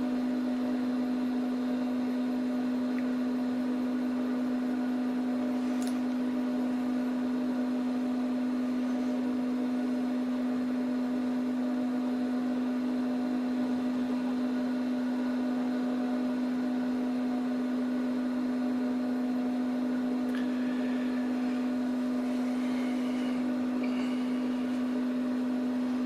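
Dell PowerEdge R710 rack server's cooling fans running steadily while it boots: a constant hum with one strong tone and fainter tones above it.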